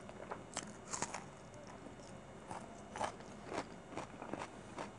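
Close-miked eating of chicken biryani by hand: irregular crisp crunching bites and chewing, sharpest about a second in and again around three seconds in.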